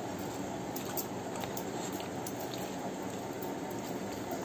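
Soft squishing and a few faint clicks of rice being mixed by hand and chewed, over a steady background hiss.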